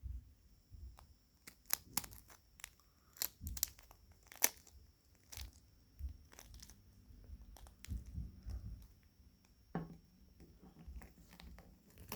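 Eggshell cracking and crunching: a string of sharp, brittle cracks at irregular intervals, with soft low thuds between them.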